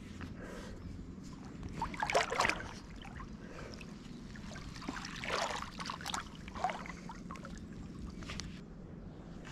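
Shallow lake water sloshing and splashing in short irregular bursts, about two seconds in and again around five to seven seconds, over a low steady background.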